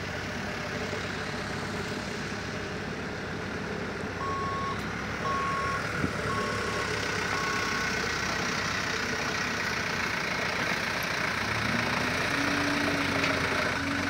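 Diesel construction machinery running steadily. About four seconds in, a reversing alarm beeps four times, about once a second. Near the end a second engine note sets in, rising slightly and then holding steady.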